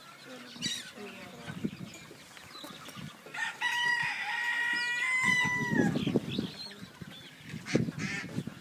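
A long, high animal call with a steady pitch, starting about a third of the way in and lasting about two seconds before its pitch falls away at the end. Low, rough noise follows right after it.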